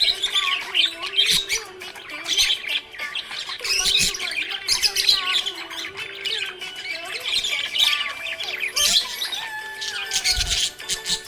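Budgerigar chirping and warbling in a dense, unbroken stream of short chirps and squawks.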